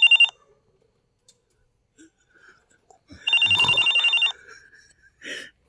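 A bell ringing with a fast, rattling trill in bursts of about a second: one cuts off just after the start, and another comes about three seconds in with a thump beneath it. A short rough noise follows near the end.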